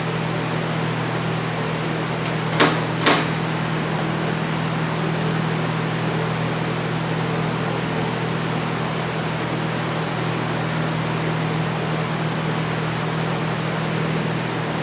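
Steady low mechanical hum, like a shop fan or ventilation unit running, with two short sharp clicks about half a second apart near the start.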